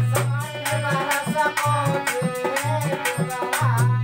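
Rasiya folk music: a harmonium plays the melody over a steady rhythm of low dholak strokes and sharp percussive clicks.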